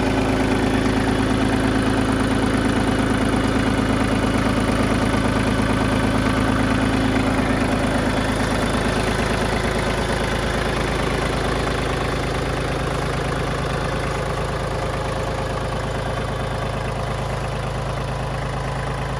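Iseki TPC15 crawler tractor's three-cylinder diesel engine idling steadily. The sound grows a little quieter and thinner about nine seconds in.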